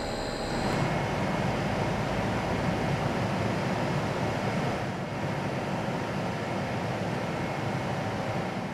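Steady rumbling, hissing noise of distillery plant. A faint steady hum stops about a second in.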